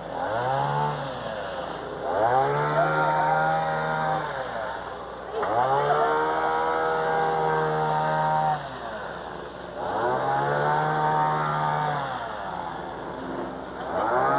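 A small engine speeding up and dropping back again and again, each surge lasting two to three seconds.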